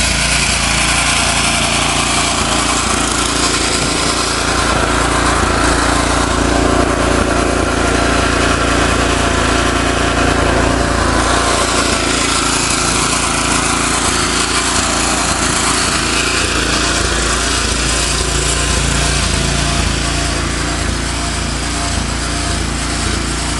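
A small engine running steadily at an even pitch, with a constant hiss over it.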